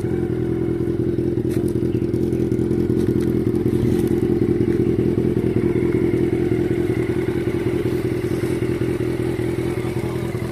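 Honda CB400 Super Four Version S inline-four motorcycle engine running steadily at idle through its stock exhaust, swelling slightly louder partway through.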